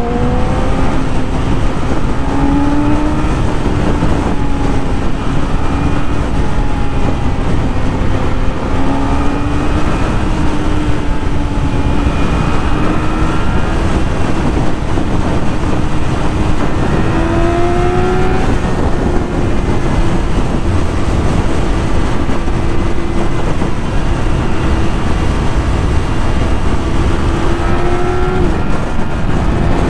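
Yamaha YZF-R6 sport bike's 600 cc inline-four engine running at a steady cruise under a loud, constant rush of noise, its note climbing slowly in pitch and dropping briefly near the end.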